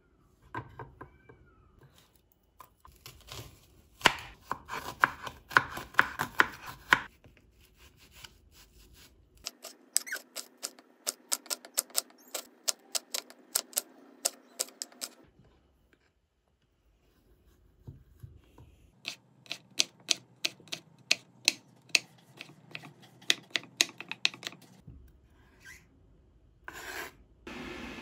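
Santoku knife chopping onion on a bamboo cutting board: three runs of quick sharp knocks, about three or four strokes a second, with pauses between them.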